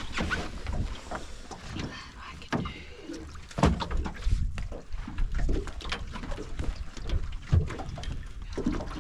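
Water slapping against a small aluminium boat's hull, with irregular knocks and scrapes as a crab drop net's rope is hauled in hand over hand over the side, over a low wind rumble.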